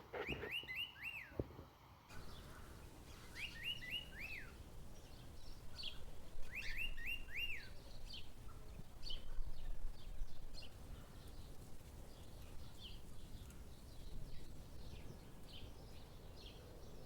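Wild birds calling: one bird repeats a quick phrase of three or four rising-and-falling whistled notes three times in the first eight seconds, while other birds give short high chirps throughout.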